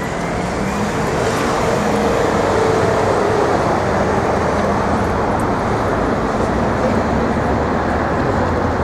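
City street traffic: a steady wash of car engine and tyre noise, swelling over the first couple of seconds as vehicles pass.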